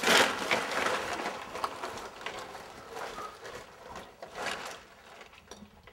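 A full paper grocery bag rustling and crinkling as it is handled, loudest in the first second, then growing fainter with scattered crackles as it is carried away.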